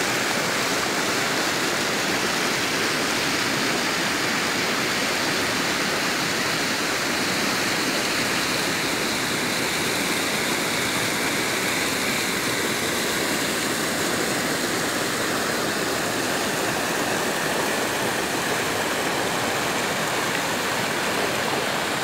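Muddy floodwater rushing and churning over rock slabs below an overflowing reservoir, a steady, even rush of water.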